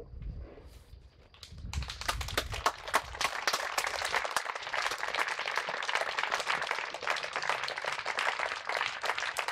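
The last chord of an accordion and brass band dies away. About two seconds in, an audience starts clapping, dense and steady, and the applause carries on.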